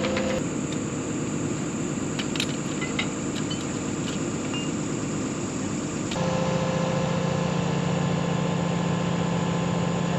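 Track hoe's diesel engine idling steadily, with a few light clicks a couple of seconds in; the hum changes character abruptly about six seconds in.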